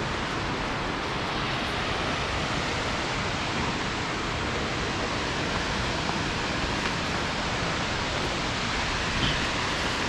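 Ramboda Falls, a 109 m waterfall, rushing steadily: an even, unbroken noise of falling water.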